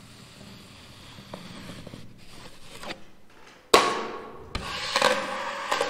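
Steel drywall knife scraping gypsum joint compound along a ceiling joint, faint at first. From about three and a half seconds in come several louder, sharp metal scrapes and knocks as the knife is worked against another tool held below.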